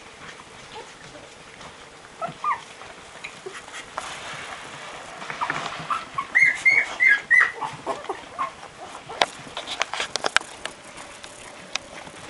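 Twelve-day-old Barbet puppies squeaking and whimpering while searching for their mother to nurse. There are a few short high squeaks about two seconds in and a run of five quick squeals around the middle, followed by scattered clicks and rustling.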